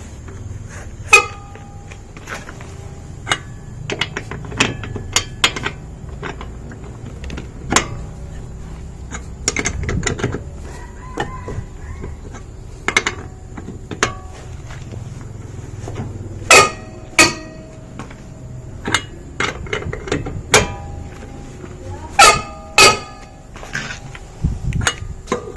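Metal clanks and clinks of an L-shaped wheel brace on the wheel nuts, which are being tightened one after another in a crisscross order. The knocks are irregular, some ringing briefly, over a low steady rumble.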